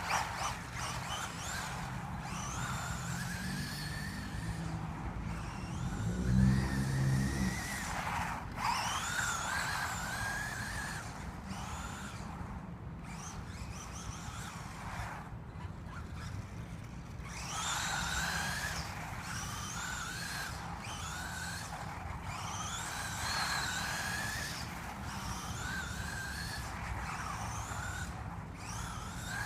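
Electric motor of a remote-control car whining up and down in pitch, over and over, as the car speeds up and slows. There is a short, louder low rumble about six seconds in.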